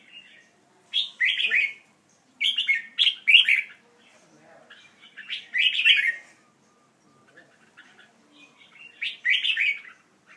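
Pet birds chirping in short, loud bursts, four times, with quiet gaps between.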